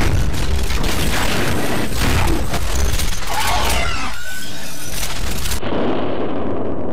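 Robot-transformation sound effects: dense mechanical clicking and clanking over a deep rumble as the robot's arm shifts into a gun. About five and a half seconds in, the clatter stops and a muffled rumble remains.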